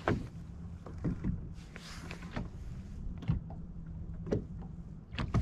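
Low steady hum, with a handful of sharp clicks and knocks as a spinning reel and rod are handled close to the microphone.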